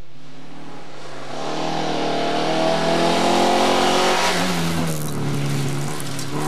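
Volvo Amazon rally car approaching hard on a gravel road, its engine rising in pitch and growing louder. Its note drops as it passes, about four and a half seconds in, and gravel crackles under the tyres as it goes by.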